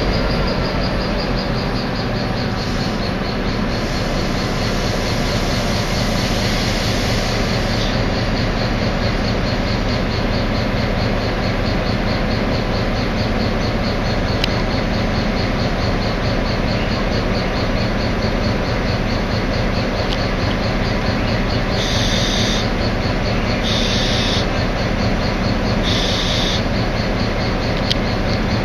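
Diesel-electric locomotive running steadily as it pulls passenger coaches slowly along the track. Near the end come three short high-pitched squeals, about two seconds apart.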